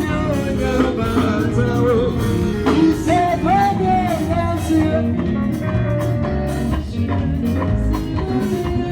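Band music at a sound check: a voice singing a melody over guitar, with a heavy low end and a steady beat.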